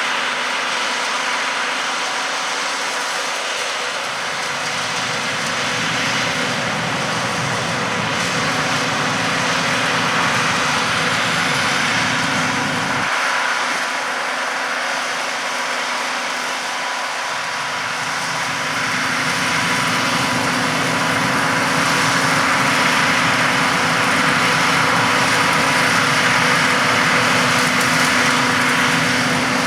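Peanut harvesting machinery running steadily: the diesel engines and working threshers of peanut combines, a continuous mechanical din with a steady hum over it. The low rumble drops out abruptly about halfway through and comes back a few seconds later.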